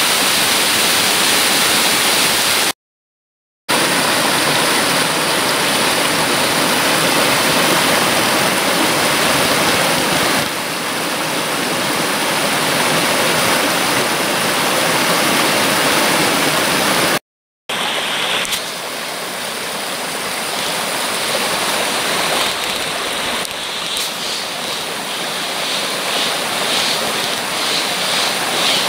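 Mountain stream water rushing over rock slabs and small cascades, a steady loud rush. The sound drops out completely twice, briefly about three seconds in and again around seventeen seconds, and is a little softer after that.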